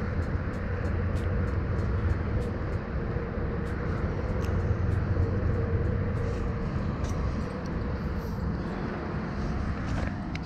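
A steady low rumble with a faint constant hum over it and scattered small clicks.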